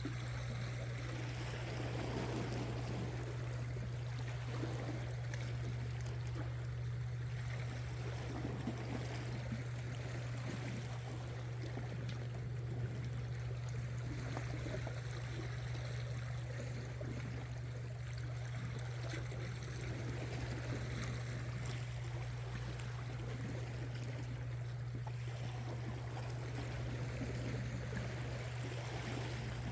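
Seawater washing and trickling among shore rocks, a steady irregular splashing, over a constant low hum.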